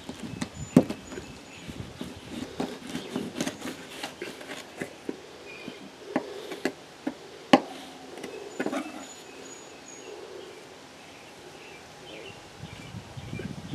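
Knife cutting through a dead muskrat's neck to remove the head: irregular clicks and crunches of the blade working through skin, cartilage and bone, with a few sharper cracks, the sharpest about a second in and a little past halfway.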